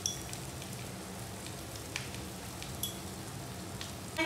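Fried rice sizzling softly in a wok over the flame: a steady frying hiss with a few scattered light crackles.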